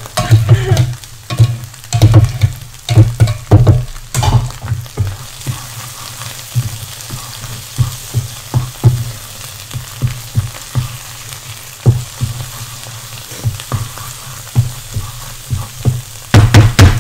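Onion paste sizzling as it fries in oil in a shallow frying pan, stirred with a wooden spatula that knocks and scrapes against the pan at irregular intervals, with clusters of knocks near the start and again near the end. The paste is being fried until the oil separates.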